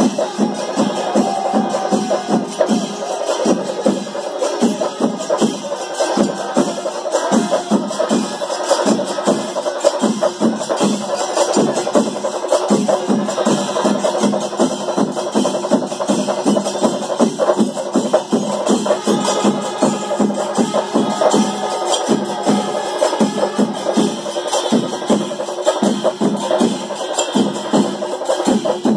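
Chenda melam: a Kerala temple percussion ensemble of chenda drums, struck in fast, dense, unbroken strokes. A wavering pitched tone rides above the drums now and then.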